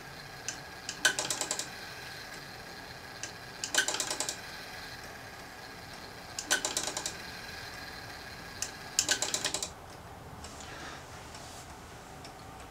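Running brass fusee movement of a Dent grand sonnerie bracket clock, making mechanical clicking. Groups of rapid sharp clicks come about every two and a half seconds, four times, each led by a single click. No bells or gongs sound.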